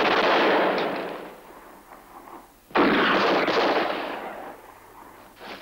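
Automatic gunfire from a film shootout: a volley that dies away in the first second and a half, then a second volley that starts suddenly a little under three seconds in and fades over about two seconds, with one more short crack near the end.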